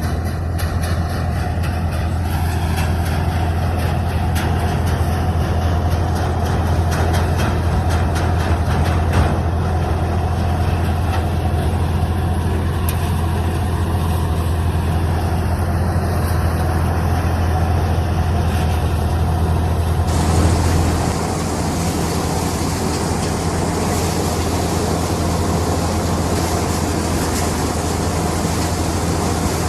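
Sonalika DI 42 RX tractor's diesel engine running steadily with a deep, even hum, together with the paddy thresher it drives. About twenty seconds in the hum eases slightly and a brighter rushing noise takes over.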